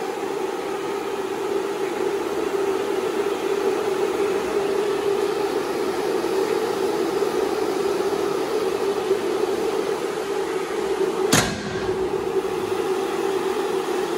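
A steady mechanical hum from a Bobcat T770 compact track loader. About eleven seconds in, its metal rear engine door shuts with a single sharp bang.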